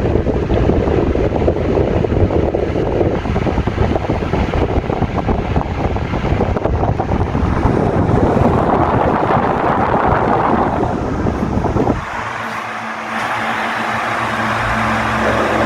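Ventisol 50 cm table fan running, its airflow buffeting the microphone. About twelve seconds in the buffeting drops sharply and the steady hum of the fan's motor comes through.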